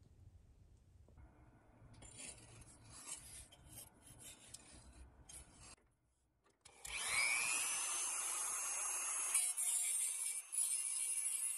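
Irregular rasping, scraping strokes of hand work on a part. After a brief pause, a small high-speed power tool starts with a quick rising whine and runs steadily, louder than the hand work.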